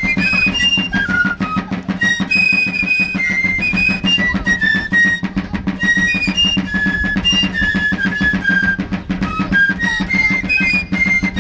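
Fifes and drums, 18th-century military field music, playing a march: a high fife melody over continuous drumming.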